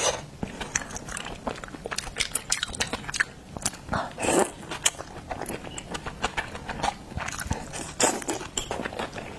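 Close-miked eating of seafood: wet chewing and biting with a quick run of sharp clicks and crackles, and a louder wet slurp about four seconds in.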